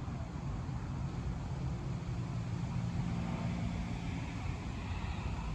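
Road traffic: cars driving past, giving a steady rush of engine and tyre noise.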